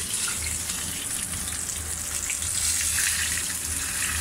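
Corn-flour-dusted horse mackerel frying in a pan of hot sunflower oil: a steady sizzle.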